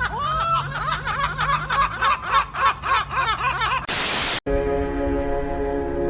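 A high-pitched voice giggling in quick, bouncing syllables, cut off about four seconds in by half a second of loud static. Then a sustained, ominous music chord starts.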